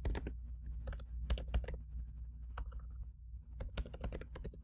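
Typing on a computer keyboard: irregular key clicks in quick little runs with short pauses between, over a low steady hum.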